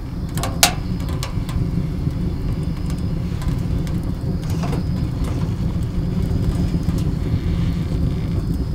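Wood fire burning in a small homemade stainless-steel camping stove: a steady low rumble of the fire drawing hard, with sharp crackles and pops from the burning wood. The loudest pop comes about half a second in, and a few fainter ones follow.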